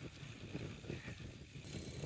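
Wind buffeting the microphone and an uneven rumble of tyres on the road while a bicycle is ridden along a street.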